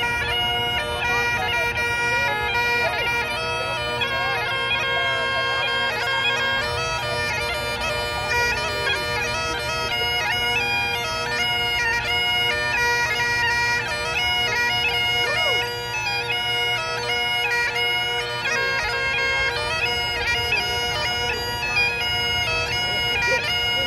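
Highland bagpipes playing a tune, the melody notes changing over the steady, unbroken drones.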